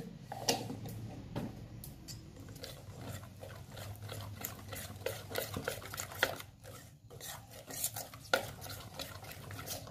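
Metal spoon stirring a thick rice-paste and flour batter in a stainless steel bowl, with irregular scraping and clinking against the bowl's sides.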